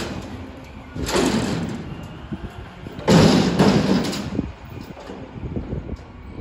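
Front-load garbage truck emptying a recycling bin raised over its cab: two loud rattling crashes, about a second in and about three seconds in, as the bin is tipped and its contents fall into the hopper. The truck's engine runs underneath.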